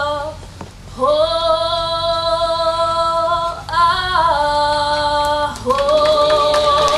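A choir singing slow, long-held chords. There is a short breath break about a second in, a brief shift of pitch about four seconds in, and a new chord is taken up near the end.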